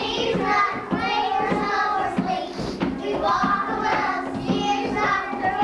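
Young children singing a song together to a music accompaniment.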